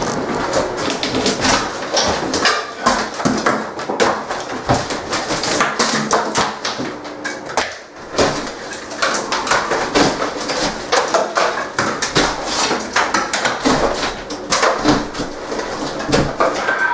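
Drywall being torn off wall studs by hand, making many irregular cracks, snaps and crunches as the board breaks away, with a short lull about halfway through.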